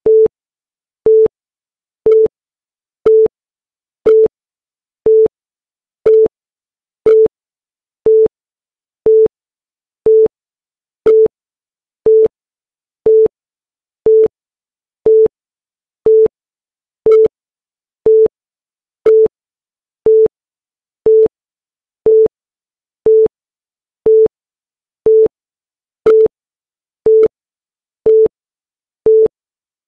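Short electronic beep of one steady tone, repeating exactly once a second with silence between, each beep starting and stopping with a faint click: a timer's once-a-second beep counting off the seconds.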